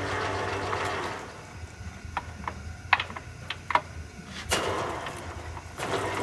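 Carroll-Jamieson engine lathe's geared headstock running with the chuck turning, then running down about a second in. Several sharp clicks and clunks of gear-shift levers being moved follow, and the headstock starts up again about four and a half seconds in.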